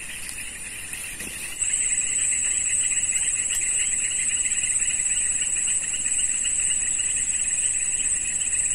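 Insects calling in a steady high-pitched chorus. About a second and a half in, a louder one starts up with a fast, evenly pulsing shrill trill that holds steady.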